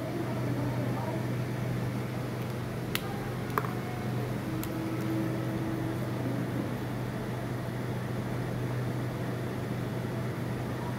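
Steady low hum of background room noise, with a few faint clicks about three to five seconds in.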